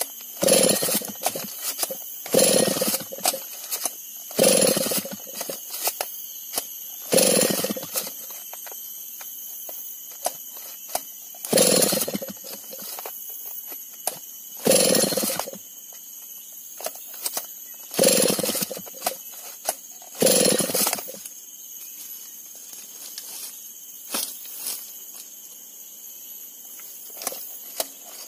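A two-stroke chainsaw being pull-started again and again: about eight sharp, second-long pulls of the recoil starter at uneven gaps, and the engine never catches. The saw is hard to start, which the owner put down to a carburettor that needed priming with petrol.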